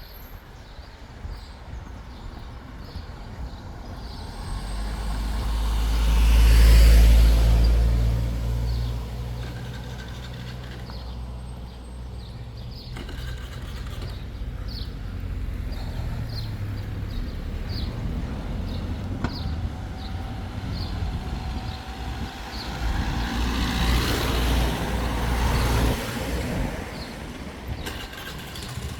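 Motor vehicles passing on a road. A heavy engine's low running swells to a peak about seven seconds in, and again near the end.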